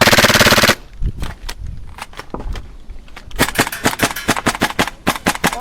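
A loud buzz lasts under a second at the start. Sharp cracks of airsoft guns firing follow, sparse at first and then rapid, several a second, from a little past halfway.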